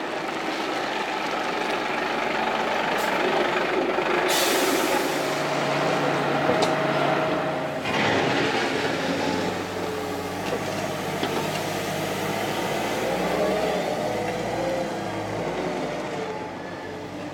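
Heavy vehicle diesel engines running over a steady noisy wash: first a fire engine, with a short hiss about four seconds in, then a wheel loader pushing hail, its engine note stepping up and down.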